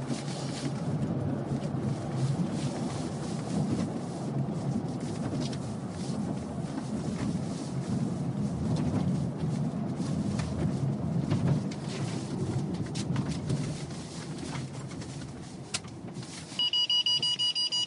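Car cabin noise while driving: a steady low rumble of engine and tyres. Near the end, a rapid high-pitched electronic beeping from the dashboard for about a second, which the driver says is a stall indicator, not a collision warning.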